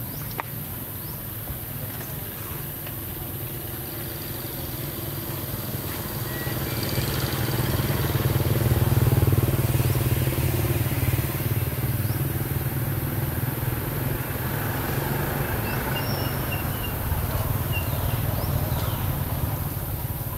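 A motor vehicle's engine running in the background as a low rumble that swells to its loudest about halfway through and then holds steady.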